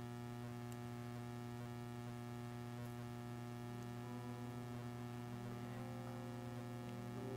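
Soft electric keyboard pad holding low sustained chords that shift to new notes a few times, over a steady low hum.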